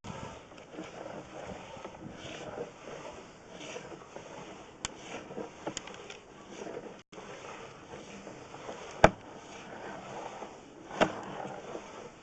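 Sewer inspection camera being pushed through a house drain line: a steady scraping rustle with a few sharp knocks, the loudest about nine seconds in and another about two seconds later.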